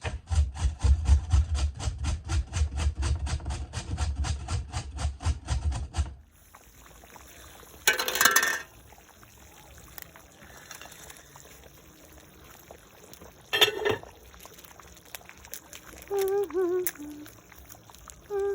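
Rapid knife chopping on a cutting board, about five even strokes a second, stopping about six seconds in; later a short rush of noise and a single sharp knock.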